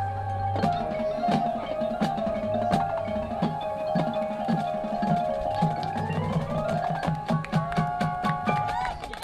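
Marching band playing: held wind chords over a rhythmic pulse of low notes, with marimba and other mallet percussion struck throughout and a line climbing in pitch about two-thirds of the way through.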